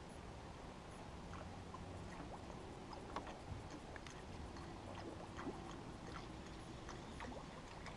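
Scattered light clicks and taps over a low steady hum, from tackle and hull on a fishing boat.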